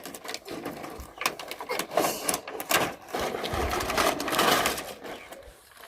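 Small battery-operated toy mechanism running, a motor whirring with quick clicking and rattling from its plastic gears.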